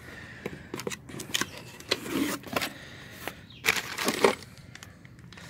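Cardboard parts box being opened and the plastic wrapping around a new fan clutch rustling: scattered taps and crinkling, loudest about two seconds in and again around four seconds.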